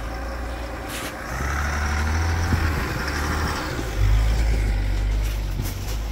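GMC Sierra AT4 pickup's engine running under load as it crawls through snow, growing louder about a second in and again, most strongly, about four seconds in as it passes close by. Its tyres hiss and crunch through the snow ruts.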